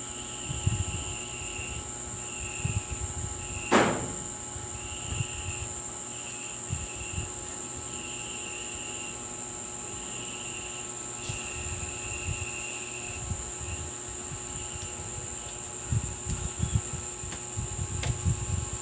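Insects chirping in short repeated trills, with low knocks and bumps of handling, and one sharp click with a falling sweep about four seconds in.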